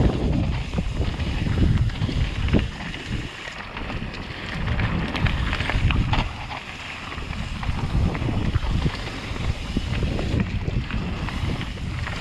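Wind rumbling and buffeting on the microphone of a camera riding on a mountain bike as it rolls down a dirt singletrack, rising and falling with speed, with the tyres crunching over dirt and occasional clicks and knocks from bumps in the trail.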